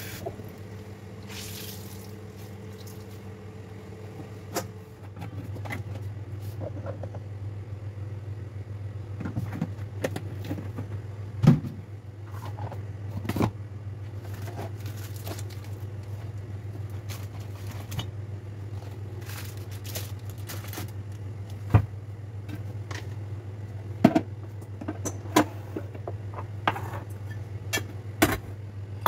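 Kitchen cleaning: a wet cloth rinsed at the sink, then wiped over a marble countertop, with scattered knocks and clicks of jars and objects being moved and set down, several of them sharp and loud. A steady low hum runs under it from about five seconds in.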